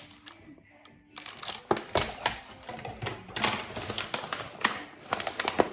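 Groceries being handled and unpacked: from about a second in, a fast, irregular run of clicks and crinkles from plastic packaging and shopping bags.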